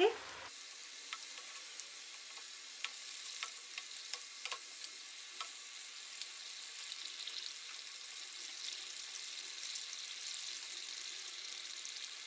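Spring rolls deep-frying in very hot oil in a kadhai: a steady sizzle, growing a little stronger in the second half, with scattered sharp pops and clicks.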